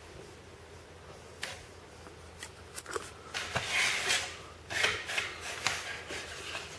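Close handling noise: rubbing and scuffing with several sharp clicks. It starts about a second and a half in and thickens into bursts of rustling later on.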